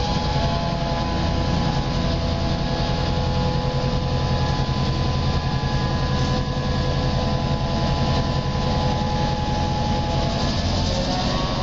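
NOHAB M61 diesel-electric locomotive's EMD 16-567 V16 two-stroke diesel idling steadily, with a steady whine over the low rumble.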